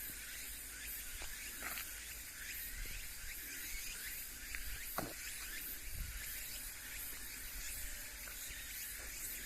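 Steady high-pitched insect buzzing and chirping over a low background rumble, with one short downward-sweeping sound about five seconds in.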